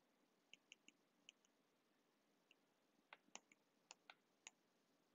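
Faint clicks of a stylus tip tapping and writing on a tablet's glass screen: a few light ticks in the first second and a half, then several sharper taps from about three seconds in.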